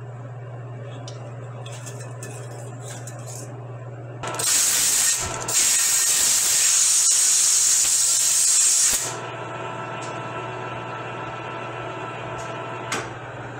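Compressed-air blow gun blasting into a rifle barrel's chamber to clear out machining chips: a short hiss about four seconds in, then a longer blast of about three and a half seconds. A steady low hum runs underneath.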